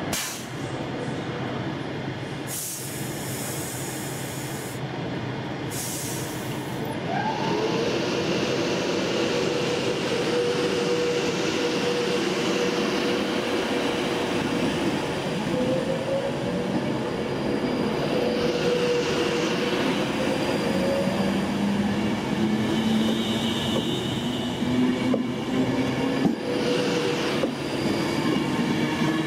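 Virgin Trains Pendolino electric train pulling away from the platform. After two short hisses, the traction motors start whining about a quarter of the way in and slowly rise in pitch as it gathers speed past the platform.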